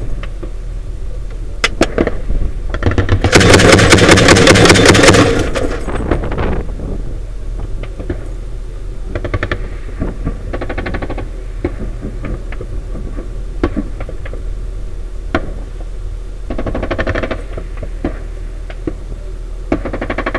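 Automatic gunfire in a firefight. A loud burst of rapid shots lasts about two seconds a few seconds in, followed by shorter, fainter bursts and single shots. A vehicle engine hums steadily underneath.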